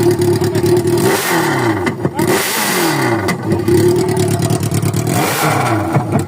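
Yamaha XJ inline-four motorcycle engine revved hard with the exhaust's end tip removed, so it runs straight from the pipe body and sounds loud. Revs are held high, let off and falling about a second in, brought back up and held, then let off and falling again near the end.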